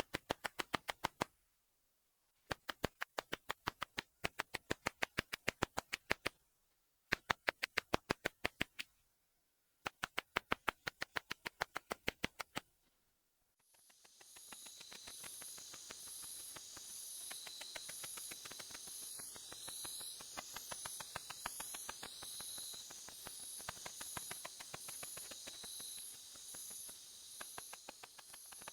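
Song of the Ashizuri katydid (Tettigoniopsis ashizuriensis), an ultrasonic 46 kHz call made audible, heard as bursts of rapid, evenly spaced clicks lasting one and a half to two seconds with short silent gaps. About halfway through, the clicks stop and a steady hiss takes over, with high-pitched insect tones pulsing evenly through it.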